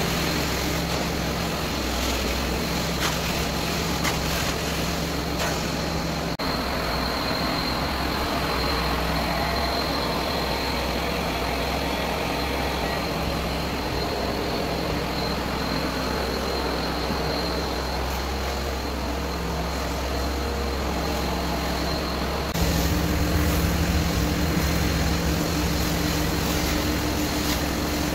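Hot-water carpet extraction machine running: a steady roar of vacuum suction and hissing spray through the hand tool, with a constant high whistle. About 22 seconds in it gets louder and a deeper tone joins in.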